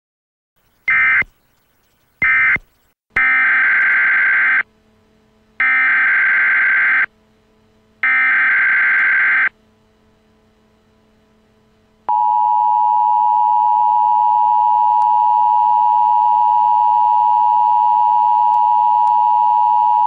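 Emergency Alert System tones: two short electronic bursts, then three buzzy SAME header data bursts, each about a second and a half long with a short pause between them. About twelve seconds in, the steady two-tone EAS attention signal begins.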